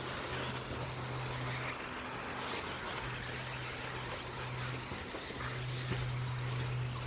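Electric 1/10 scale 2wd stadium trucks racing on a dirt off-road track: a steady mix of motor and tyre noise. A low hum runs underneath and drops out twice.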